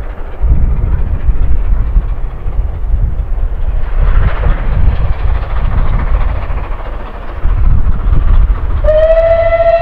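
Bulleid West Country class Pacific steam locomotive working a train under steam, its exhaust beating in a loud low rumble. Near the end it sounds its whistle in one long steady note.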